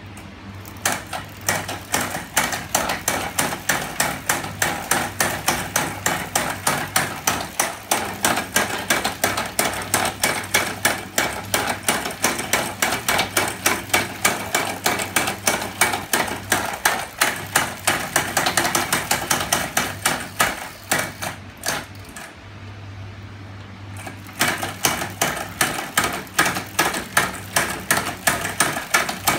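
Homemade magnet-engine mechanism on a bicycle frame running, its moving metal parts knocking in a fast, even rhythm of about three knocks a second over a steady low hum. The knocking stops for about two seconds near the end, then resumes.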